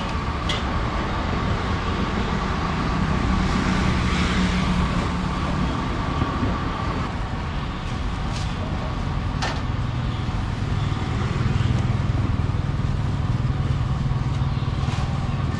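Steady street traffic noise, with motor vehicle engines running past and a low engine hum that shifts in pitch partway through.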